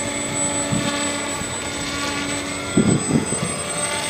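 Twin 2212 1400 kV electric motors spinning 8×3.8 pusher propellers on an RC plane in flight, giving a steady motor-and-prop hum. About three seconds in the steady tone stops and a few rough bursts of noise follow.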